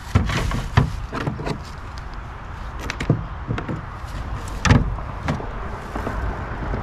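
Fishing gear being handled in a kayak: a run of sharp knocks and clacks against the kayak's hull and deck, the loudest a little under five seconds in. A low rumble of wind on the microphone runs underneath.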